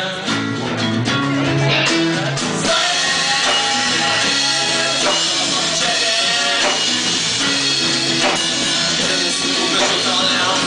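Live rock band playing between sung lines: guitar with a drum kit and cymbals, loud and continuous.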